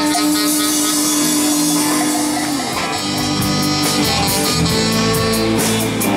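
A live rock band with electric guitars, bass and drum kit playing an instrumental passage. A long held note rings until about two and a half seconds in, then gives way to a new groove with steady drum hits: the end of one song and the opening of the next.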